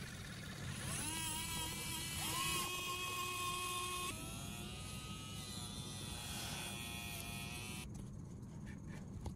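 Small DC motors of a homemade model excavator whining as they drive its lead-screw arm actuators and swing gears. The whine rises in pitch and settles about a second in and again a little later, then changes to a lower, steadier whine from about four seconds in until near the end.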